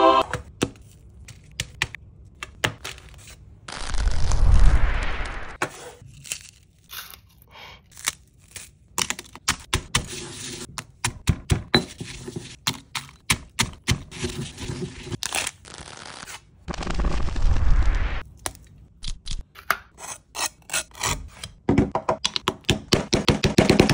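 Stone pestle crushing and grinding dry, crumbly material in a stone mortar: a run of sharp cracks and gritty scrapes, with two heavier thuds and a dense run of crunching near the end.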